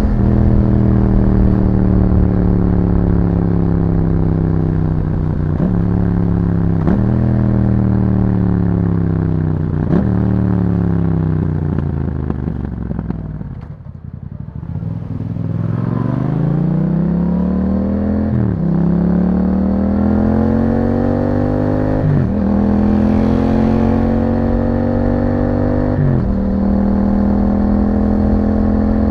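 A Yamaha MT-07's 689 cc parallel-twin engine through an Akrapovic exhaust. It first slows under engine braking, with three downshifts that each step the pitch back up, and goes quietest about halfway through. It then pulls away, the note rising through three upshifts before holding steady near the end.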